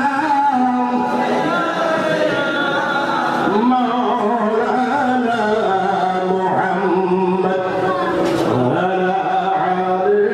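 A man's voice chanting a slow, drawn-out melody, holding notes for a second or more, played loud through a public-address system driven by Ahuja amplifiers.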